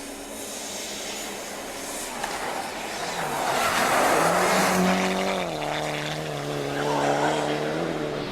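A rally car passes at speed with tyre noise, its engine note loud and dropping in steps about halfway through before holding steady.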